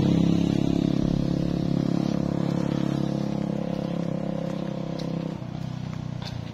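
Vehicle engine running steadily while riding along a road, slowly fading; its low note thins out about five seconds in.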